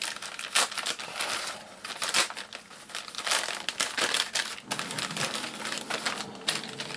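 Grey plastic poly mailer bag crinkling and rustling as it is opened by hand and a packet is pulled out of it, in an irregular run of crackles.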